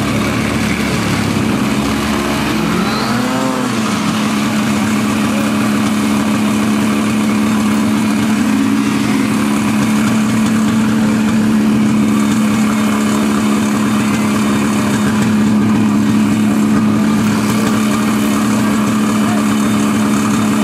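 Snowmobile engine idling steadily close by, with a brief rise and fall in engine pitch about three seconds in.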